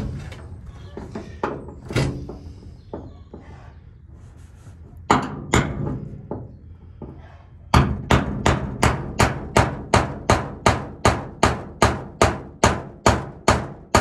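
Hammer driving a nail through tin sheeting into timber. A few scattered knocks and two sharp blows about five seconds in, then a steady run of strikes at about two and a half a second.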